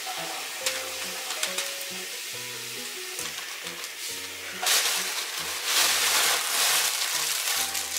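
Thin plastic carrier bag rustling and crinkling as it is handled and a cat moves in it, with louder crinkling bursts about halfway through and again for over a second near the end. Light background music plays underneath.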